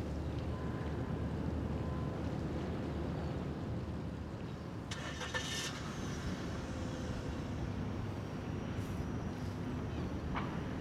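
Steady low engine rumble, with a brief harsh higher-pitched sound about five seconds in.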